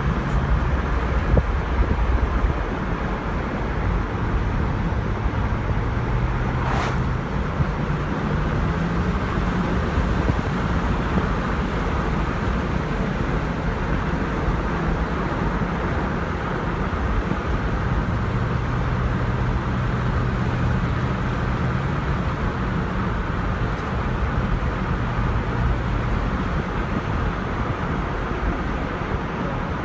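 2002 Jeep Grand Cherokee on the move: steady road noise with a low whine that fades in and out. It is the intermittent drive noise the owner wants diagnosed, which stops when the Jeep stops.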